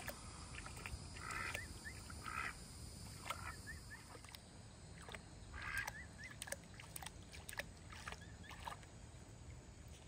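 Faint splashing and sloshing of water as emu chicks wade through a shallow pond, with a few short high chirps now and then.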